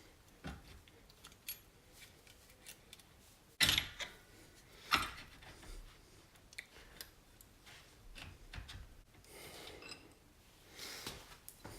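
Metal clicks and scrapes as a motorcycle fork cap is pressed down against its spring and a circlip is worked into its groove, with two sharper metallic knocks about three and a half and five seconds in.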